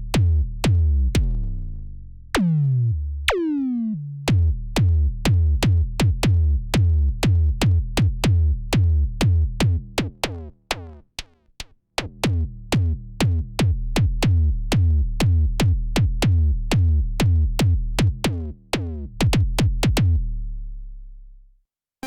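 Arturia MiniFreak synthesizer playing a fast, drum-machine-like sequence of short, punchy bass notes with clicky attacks. A couple of notes early on drop steeply in pitch like a kick drum. The pattern breaks off briefly about halfway and ends on a low note that fades out near the end.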